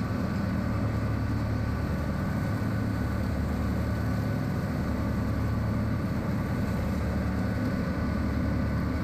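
John Deere 110 tractor-loader-backhoe's diesel engine running steadily under load, driving a PTO-powered, belt-driven three-blade finish mower through grass.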